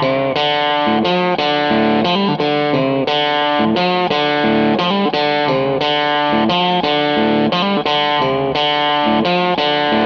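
Background music: a guitar picks a steady, repeating run of notes, about three a second.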